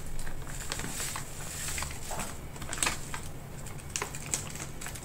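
Plastic bag crinkling and crackling as dried coconut flakes are shaken out of it onto a bucket of dry bran bait mix, the flakes pattering down. The crackles come irregularly, with a couple of sharper ones about three and four seconds in.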